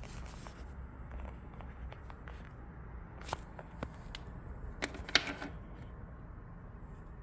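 Charging cable and plug being handled: scattered clicks, rustles and scrapes, the loudest about five seconds in, over a faint low hum.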